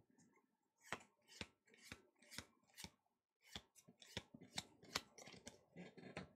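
Pokémon trading cards being flipped through one at a time, each card sliding off the stack with a short, soft snap, about two a second.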